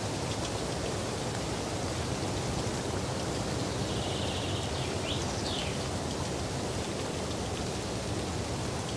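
Steady outdoor hiss of falling rain. Faint high chirps come through briefly about four to five seconds in.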